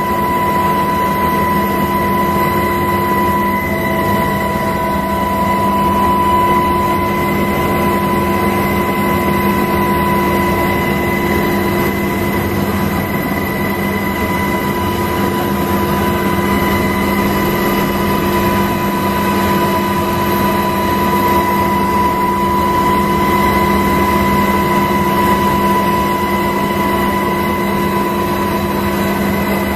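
Steady engine noise of the aircraft carrying the camera: a constant drone with a fixed whine and several held tones, unchanging throughout.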